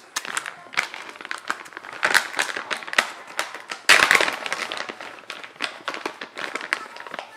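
Plastic bag of marshmallows crinkling as it is handled, in a run of irregular crackles, loudest about four seconds in.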